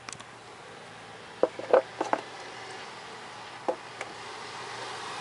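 Handling noise from a handheld camera: a few short clicks and knocks, bunched about a second and a half to two seconds in, with two more near four seconds, over a steady hiss.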